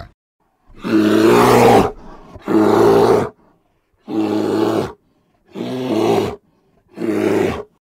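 Sun bear giving five loud, drawn-out calls, each about a second long, with short silent gaps between them.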